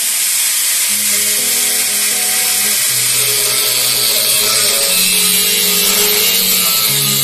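Angle grinder running at speed, its disc grinding the steel wall of an old water boiler with a steady high-pitched whine and hiss. Background music plays over it.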